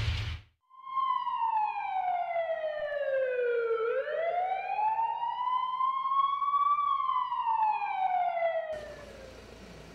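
Ambulance siren wailing slowly: the pitch falls, rises and falls again in long sweeps over several seconds, then stops shortly before the end.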